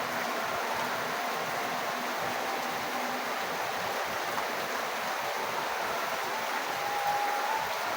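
Rainwater falling and running, a steady even hiss, with a few faint thin tones coming and going.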